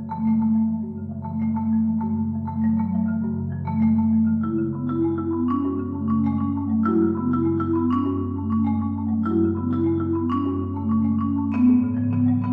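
Solo marimba: a steady stream of struck notes over ringing low notes, with the hall's reverb around them.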